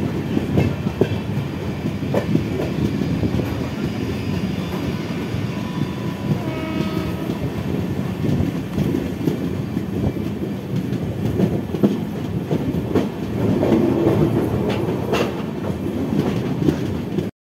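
Rumble and clickety-clack of train wheels running over rail joints, heard from the open door of a moving train while a Central Railway EMU suburban train runs alongside on the next track. A brief faint tone sounds about seven seconds in. The running gets louder a few seconds before the end.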